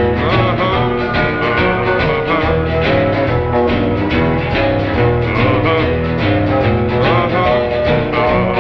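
A band recording playing an instrumental passage between sung verses, with guitar over a steady beat and bass.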